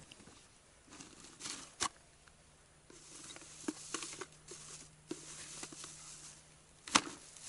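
Rustling and small clicks of gear being handled: a fishing bag rummaged through and a small container taken out and opened, with one sharp click just before the end. A faint steady hum runs underneath from about two seconds in.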